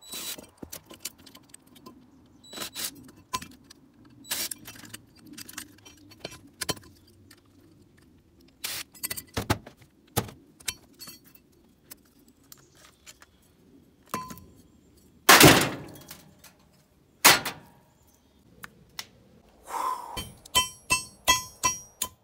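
Hammer knocking on scrap metal while breaking down a copper motor: scattered knocks and clanks, two loud thuds a little past the middle, then a quick run of ringing metal strikes near the end.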